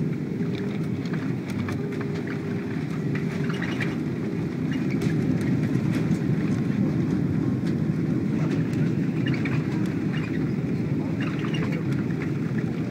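Boeing 747 cabin noise during the landing rollout with spoilers raised: a steady low rumble of engines and wheels on the runway, swelling slightly about five seconds in, with scattered light rattles and clicks from the cabin.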